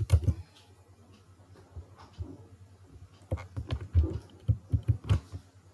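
Computer keyboard keystrokes: a quick run of about ten sharp clicks between about three and five seconds in, over a steady low electrical hum.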